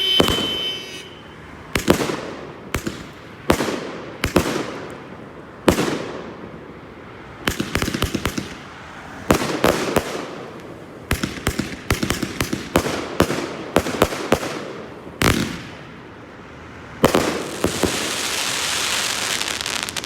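Fireworks display: a run of aerial shell bursts, sharp bangs every second or so, some in quick clusters, each trailing off in a rumbling echo. A brief whistle sounds at the start, and over the last few seconds a sustained crackling hiss takes over.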